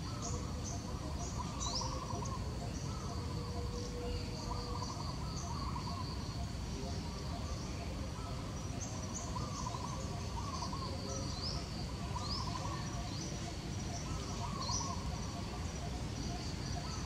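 Birds chirping with repeated short calls and an insect trilling in pulses, over a steady low rumble.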